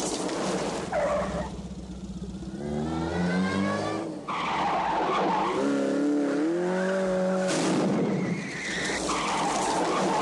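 Car stunt driving: tyres squealing through skids and handbrake turns, with the engine revving up between the squeals.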